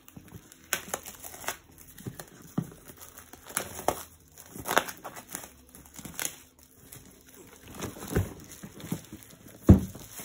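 Plastic shrink wrap crinkling and tearing in irregular crackles as it is peeled off a cardboard game box, with a louder thump shortly before the end.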